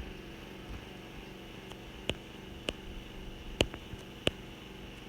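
Four short, light clicks over a steady low hum.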